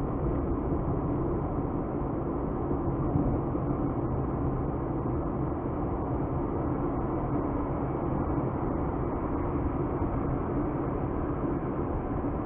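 A car being driven, with steady engine and tyre noise.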